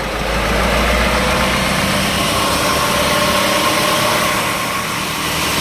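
Sawmill machinery running steadily with a loud engine hum. It swells up right at the start, then holds.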